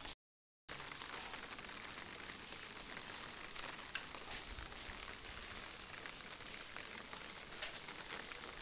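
Steady heavy rain falling on an umbrella and on a wet concrete lane, an even hiss with a few faint drip ticks. The sound cuts out completely for about half a second just after the start.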